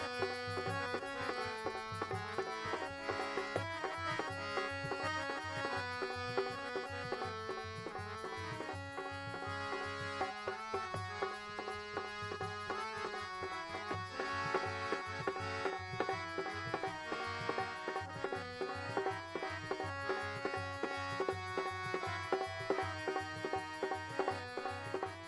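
Instrumental interlude of a devotional song: a harmonium plays the melody in held, stepping notes over a steady, quick dholak beat.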